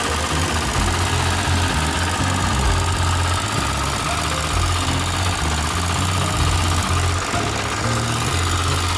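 Single-cylinder 9 hp diesel walk-behind tractor engine running steadily with a low, even beat.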